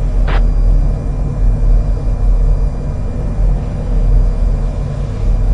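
Steady low rumble, like running machinery or traffic, with one short burst of noise just after it starts.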